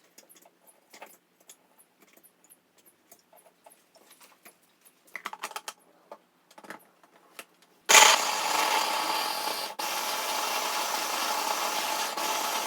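Light clicks and knocks of the blender being handled, then about two-thirds of the way in an electric blender starts and runs steadily, blending frozen watermelon chunks.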